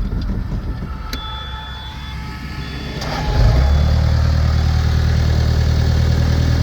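The 2004 CAT 236B skid steer's four-cylinder Caterpillar diesel starts about three seconds in. It catches readily and settles into a steady idle. Before it starts, a thin high warning tone sounds for about a second.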